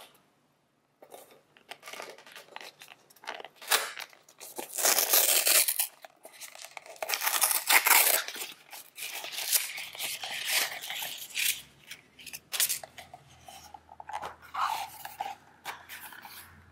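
A paper wrapping band and its sticker seal being peeled, torn and slid off a natural leather pencil case: crisp paper rustling and tearing in irregular spells, loudest about 5 and 8 seconds in.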